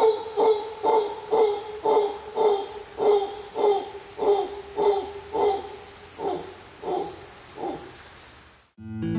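Mantled howler monkey giving a run of deep, rhythmic grunts, about two a second, that fade away near the end.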